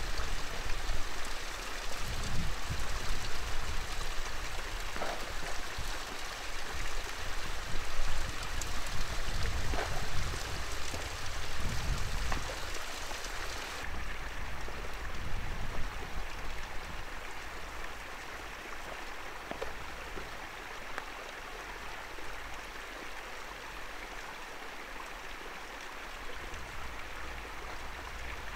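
Steady rush of mountain water running over rocks, with low wind rumbling on the microphone in the first half. About halfway through it becomes quieter and duller.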